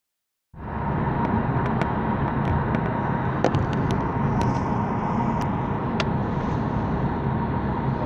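Steady road and wind noise of a car driving at speed, heard from inside the car. The noise is heaviest in the low end, with a faint steady whine and a few light ticks over it, and it starts abruptly about half a second in.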